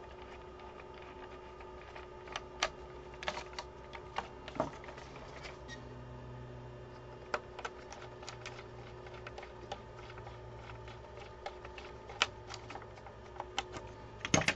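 Irregular small clicks and taps of a screwdriver turning screws and hands handling the plastic chassis of a 1/16 scale RC half-track, over a faint steady hum; the sharpest click comes near the end.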